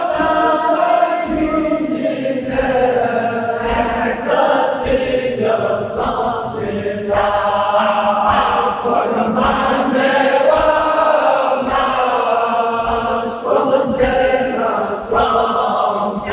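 Balti noha, a Shia mourning lament, chanted by a male reciter over a microphone, with many men's voices joining in.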